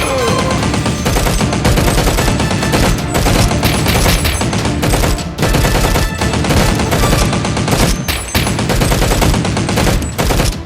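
Rapid automatic gunfire, dense and continuous, with short pauses about five and eight seconds in.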